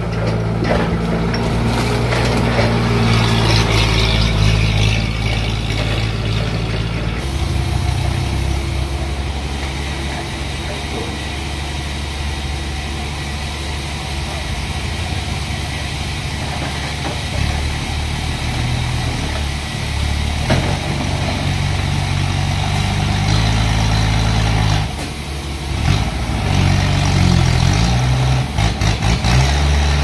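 Toyota forklift's engine running close by, its pitch rising and falling as it works, with quick repeated revs near the end.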